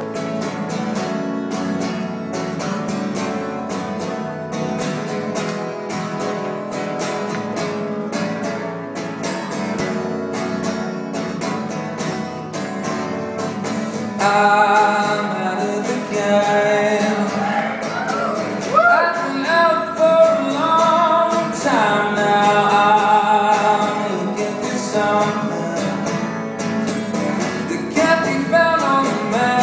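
Acoustic guitar strummed steadily on its own, then a male voice comes in about halfway and sings over the guitar; a live solo performance.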